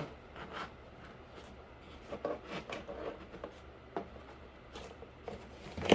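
Light scattered rubbing and small taps of cardboard being handled as a glued piece is worked back and forth into place, over a low steady hum, with a sharper knock at the very end.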